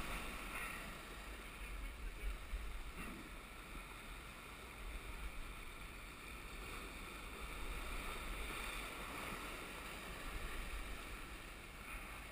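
Waves washing and breaking over shoreline rocks, with wind rumbling on the microphone.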